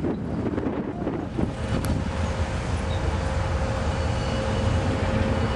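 Diesel locomotives of an approaching CSX freight train rumbling, growing slightly louder as the train nears, with a faint steady tone entering about a second and a half in.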